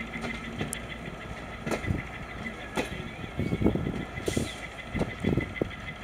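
Passenger train coaches rolling slowly past over a steady low rumble, their wheels knocking irregularly over rail joints and points, with the loudest cluster of knocks about midway. A short hiss comes just after four seconds.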